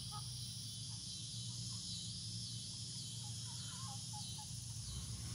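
Steady outdoor insect chorus, a high drone that wavers in a slow pulsing pattern, over a low steady hum. A few soft short chirps come about three and a half seconds in.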